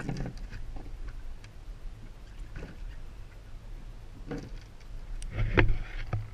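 Low steady hum of the fishing boat's engine, with scattered taps and knocks as a flounder is handled on the deck and unhooked from a jig; the loudest knocks come a little before the end.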